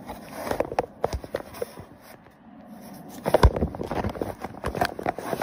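Kitten scrabbling and pawing inside brown paper: irregular rustling and scratching of the paper, loudest a little over three seconds in.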